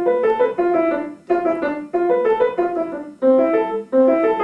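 Piano playing: a passage of quick notes in short phrases, broken off by brief pauses about a second in and again about three seconds in.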